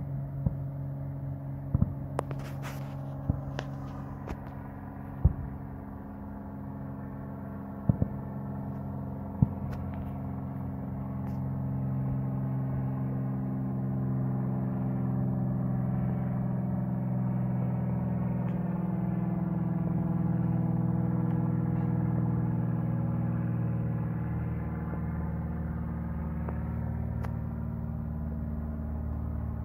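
An airplane's engines passing over. The hum swells through the middle and fades a little toward the end, its pitch drifting slowly downward. Distant fireworks go off with sharp pops about eight times in the first ten seconds.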